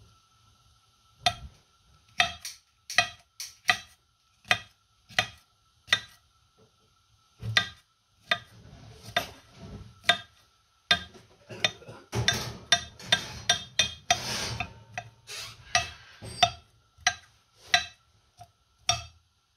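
Chef's knife chopping cucumber on a granite cutting board: sharp knocks of the blade on stone, spaced apart at first, then a quick run of chops about two-thirds of the way through.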